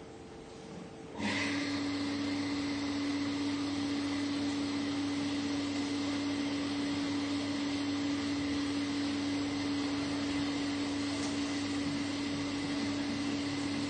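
A steady whir from an electric motor with a strong, even hum, switching on abruptly about a second in.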